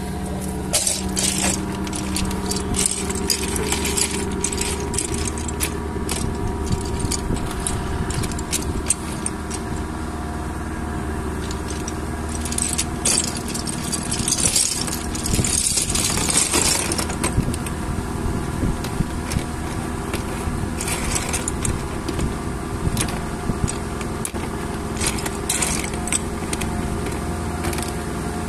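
Boat engine running steadily while clam shells clatter and rattle against one another and the boat floor as a net bag of kepah clams is emptied and sorted by hand, with the densest rattling about halfway through.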